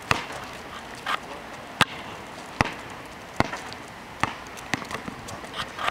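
A basketball bouncing on an asphalt court, dribbled with sharp, short bounces about once a second, six or seven in all.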